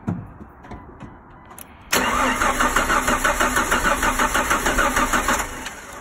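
1998 Jeep Wrangler TJ's starter cranking the engine with a steady rhythmic pulse for about three and a half seconds, starting about two seconds in, without the engine catching: a crank-no-start that a swapped ASD relay has not cured. A light click comes just before, at the very start.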